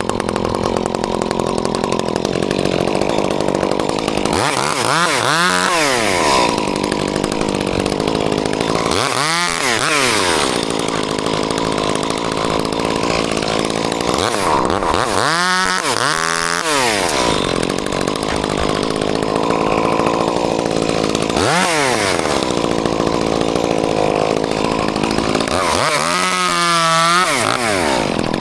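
Chainsaw running continuously, its engine pitch rising and falling again about five times as the throttle is opened and released.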